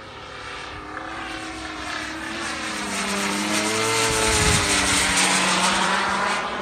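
Radio-control Corvus racer flying a pass with its gas engine and JetCat 80 turbine running together: the engine buzz and turbine rush grow steadily louder as it approaches, and the pitch drops as it goes by about four to five seconds in.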